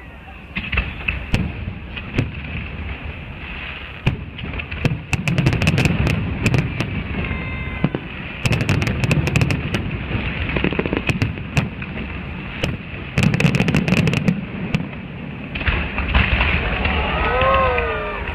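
Fireworks display: clusters of rapid crackling bangs over low booms, coming in several waves with short lulls between them. Near the end a brief arching, pitched tone rises and falls.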